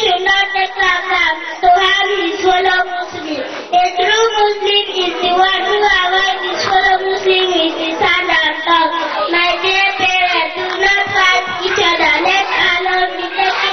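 A young girl singing solo into a microphone, a continuous melodic line with long held and gliding notes.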